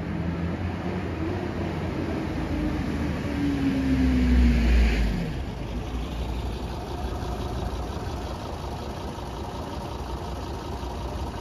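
Road traffic: a motor vehicle passes close, loudest about four to five seconds in, its engine note falling as it goes, over a steady rumble of traffic.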